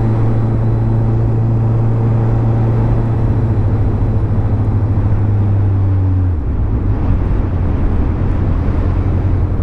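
Honda CBF600 motorcycle's inline-four engine running under way, heard from the rider's seat. The engine note is steady, then steps lower about three seconds in and again a little past six seconds.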